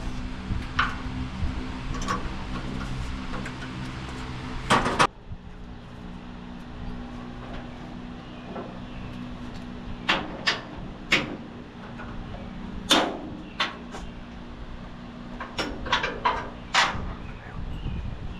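Scattered sharp metallic clicks and knocks of hand tools working on metal, over a steady low hum. The background drops abruptly about five seconds in, and the knocks pick up again about halfway through.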